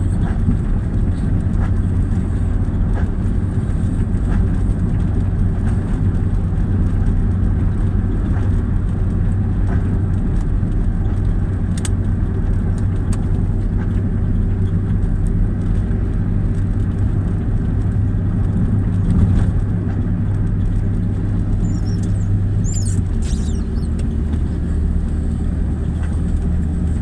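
An engine running steadily with a constant low drone; about 23 seconds in its pitch drops slightly and holds there.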